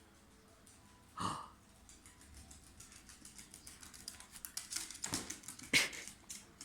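A dog chewing and biting at something: a run of quick, irregular clicks that grows louder towards the end, after a single louder burst about a second in.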